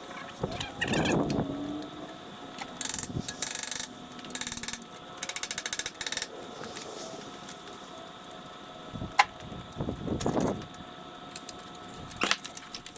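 Bicycle parts being handled and fitted: a scraping noise, several runs of rapid, even clicking like a ratchet, and a couple of sharp single knocks.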